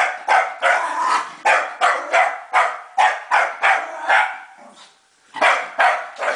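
Scottish Terrier barking at a vacuum cleaner in a rapid run of sharp barks, about three a second, pausing for about a second near the end before starting again.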